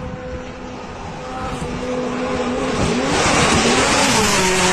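Rally car approaching at speed on a gravel stage and passing close, its engine growing louder, then the engine note falling as it goes by, with tyres and gravel hissing loudly.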